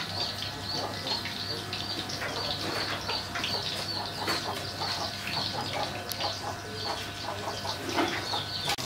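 Hot oil crackling and sizzling in a wok as a fish patty fries, a dense run of small pops.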